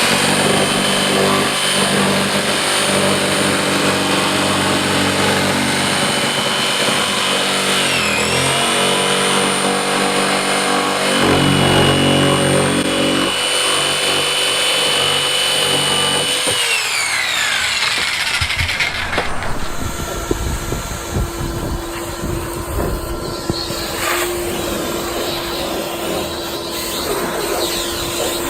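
Power saw cutting the new rectangular hatch opening in a polyethylene kayak deck. The motor whines steadily, dips briefly under load about a third of the way in, then winds down about two-thirds of the way through. A quieter machine hum follows.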